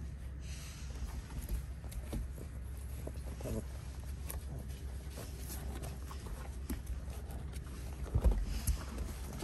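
Chow chow puppies scuffling on a wooden deck, their paws and claws tapping on the boards, with a cluster of louder knocks about eight seconds in, over a steady low rumble.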